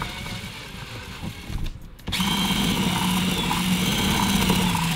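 Cordless drill with a 3/8-inch bit drilling a hole into the underside of a car's rear under spoiler. It runs more quietly at first, dips briefly about two seconds in, then runs louder with a steady motor hum for the rest.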